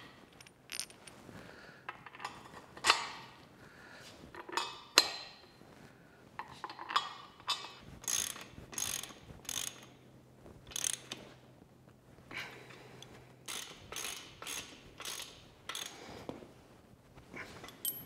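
Socket ratchet clicking in irregular runs as nuts are tightened to bolt a heavy bench vise down to a steel stand plate, with occasional clinks of metal tools.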